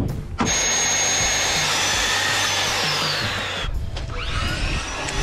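A power tool runs with a high whine for about three seconds, its whine falling in pitch as it stops; a quieter motor sound follows, its whine rising.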